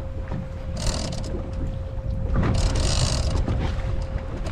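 Wind buffeting the microphone over the low rumble of a boat at sea, with a thin steady hum and two spells of hiss, about a second in and again in the middle.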